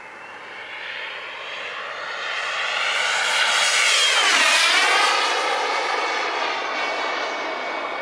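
Model jet turbine (Wren 54 Mk4) on an RC F-16 making a flyby. A high whine and rush swell as it approaches, drop sharply in pitch as it passes about halfway through, and fade slightly as it moves away.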